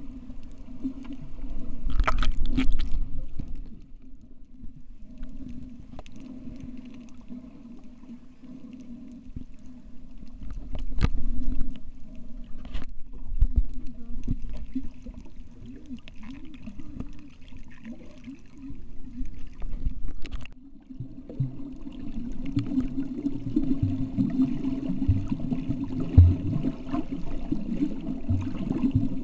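Muffled underwater sound picked up by a submerged camera: a steady low rumble of water movement with a wavering low hum, a few louder swells and scattered sharp clicks.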